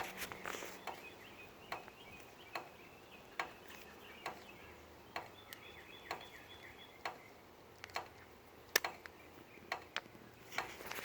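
Water dripping after rain, sharp single drips about once a second, with faint bird chirps in the background.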